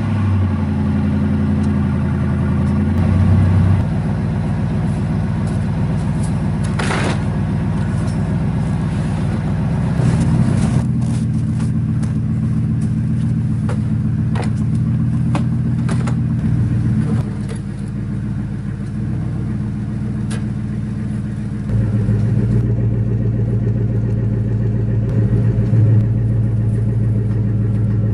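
Ford F-150 pickup's engine idling steadily, with a few knocks and clatters over it around the middle.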